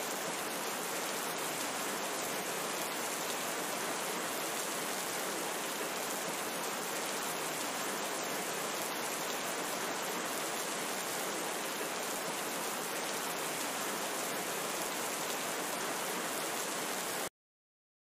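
Steady rain falling, an even hiss with no pauses, which cuts off suddenly about a second before the end.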